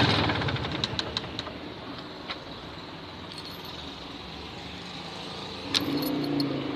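MZ ETZ 250's single-cylinder two-stroke engine falling back from a rev to a low idle, with a few sharp clicks along the way; near the end a sharp click and it picks up slightly again. The owner hears a knock in the engine and believes something is wrong.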